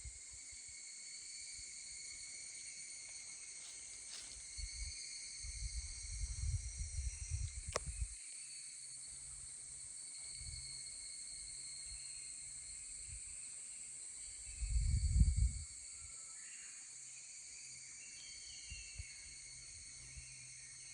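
A steady chorus of higurashi (evening cicadas) in bamboo, holding high shrill tones throughout. It is broken twice by low rumbles on the microphone.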